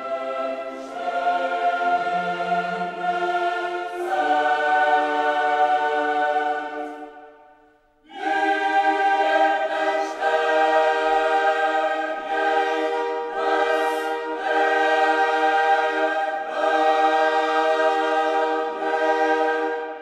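Background music: a choir singing long held chords that change every few seconds. It fades out about seven seconds in, comes back in sharply about a second later, and fades again at the end.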